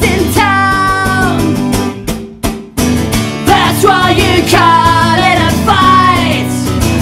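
Acoustic guitar strummed while a woman sings, a man's voice joining her; the music breaks off for a moment about two seconds in, then comes back in.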